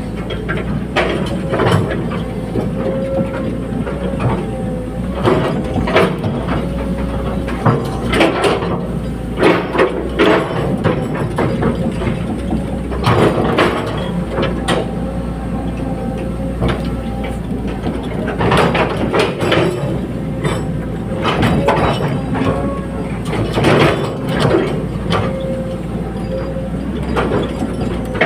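Caterpillar 320D hydraulic excavator working: the diesel engine runs with a steady hum while repeated clanks, knocks and creaks of metal come in clusters throughout.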